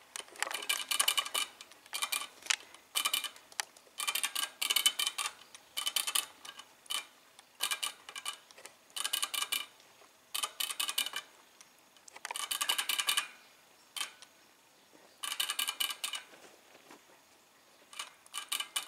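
Guinea pig drinking from a ball-valve water bottle: the metal spout clicks and rattles rapidly as the animal licks and pushes the ball, in about a dozen short bouts with brief pauses between.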